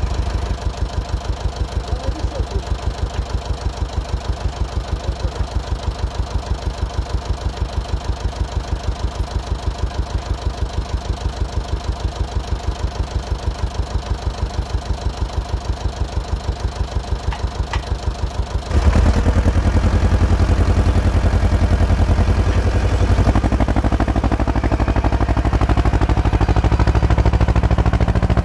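Ursus C-330 tractor's two-cylinder diesel engine idling with an even pulsing beat. About 19 seconds in it turns suddenly louder and steadier as the tractor works under load, pulling a subsoiler through the field.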